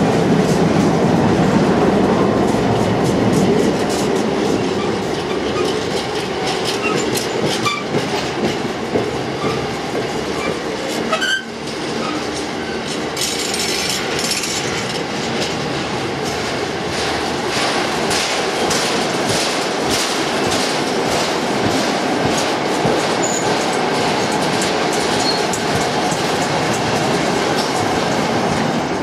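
A long freight train of car-carrier wagons rolling past, the wheels clacking over rail joints, with a few short wheel squeals around the middle.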